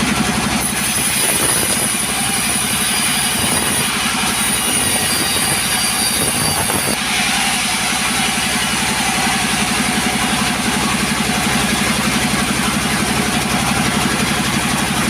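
Two-stroke chainsaw running hard and ripping a log lengthwise, a steady engine note under the hiss of the chain cutting through the wood.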